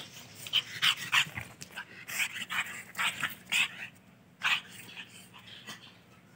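A puppy yapping: a quick run of about ten short barks that stops about four and a half seconds in.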